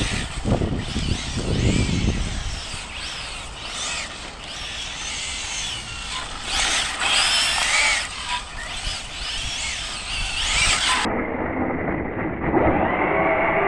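Arrma Felony 6s RC car's brushless motor whining, the pitch rising and falling again and again as it speeds up and slows, with a high squeal over it.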